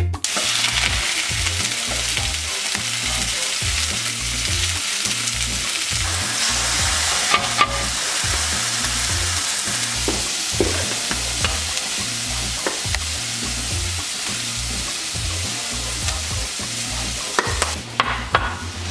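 Chopped red onion frying in oil in a nonstick frying pan, a steady sizzle with a few small pops and clicks scattered through it.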